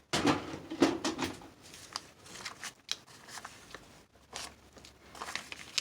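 Paper rustling with small scrapes and sharp clicks as a misplaced staple is worked loose and pulled out of folded paper by hand.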